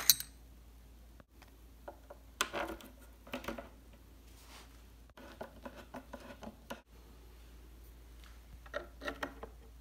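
Quiet handling of particleboard furniture panels and flat-head assembly screws: scattered small clicks, taps and rustles.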